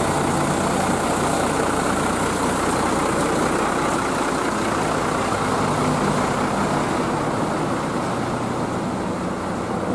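Coach bus idling while parked: a steady low engine drone under a constant rushing hiss, easing slightly near the end.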